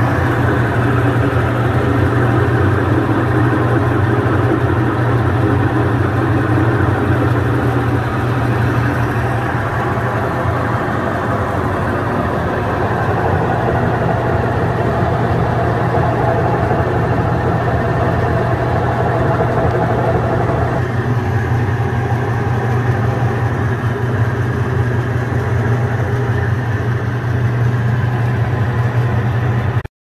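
Electric motor and belt-and-pulley drive of a stainless-steel honey extractor running steadily, a loud low hum with mechanical whirr. The tone shifts slightly about two-thirds of the way through.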